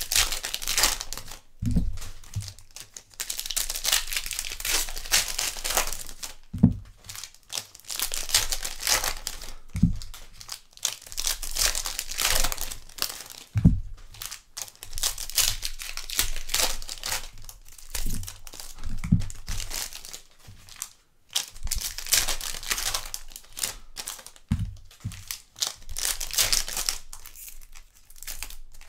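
Donruss 2021 Baseball card-pack wrappers being torn open and crinkled in a run of scratchy rustles, with a dull knock every few seconds.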